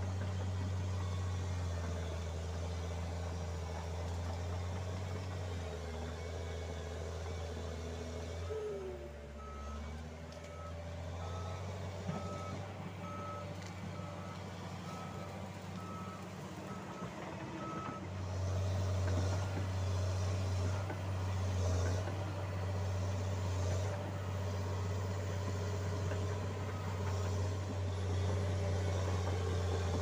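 John Deere 750J-II crawler dozer's diesel engine running steadily while it works. Near the middle its reversing alarm beeps about a dozen times at an even pace as the dozer backs up, and after the beeping stops the engine gets louder.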